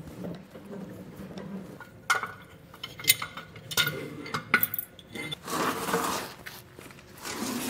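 Metal clinks and rattles from a truck's spare-tire hoist cable and its retainer as the lowered spare tire is worked free, with a brief scraping rub about six seconds in.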